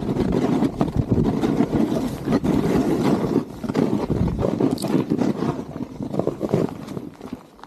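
Snowboard (Gnu Headspace) edges and base scraping and chattering over snow at speed, with wind buffeting the microphone, quietening near the end.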